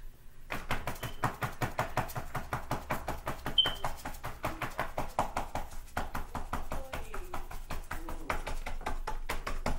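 Paintbrush dabbing paint onto paper on a wall: a rapid, uneven run of taps.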